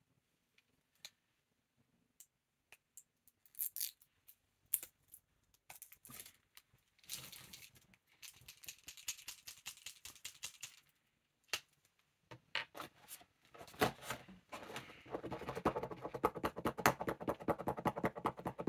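Paint marker handled with scattered clicks, then shaken in the middle so the mixing ball rattles inside it. Near the end comes a fast run of taps as the nib is pumped repeatedly against a pad to prime the ink.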